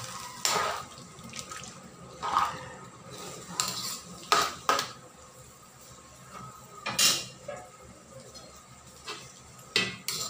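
Metal spatula scraping and knocking against a wok as a wet pork, potato and vegetable stew is stirred, in separate strokes every second or two.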